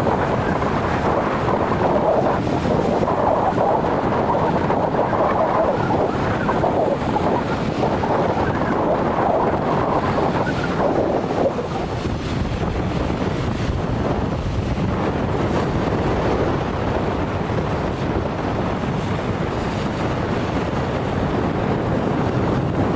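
Gusty wind buffeting the microphone, a loud steady rushing, mixed with surf breaking on the shore of a rough sea. The rush eases slightly about halfway through.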